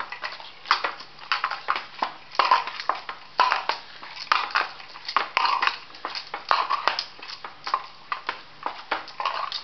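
Corn-flour dough being kneaded and pressed by hand in a stainless steel bowl: an uneven run of knocks and squishes against the metal, about one or two a second.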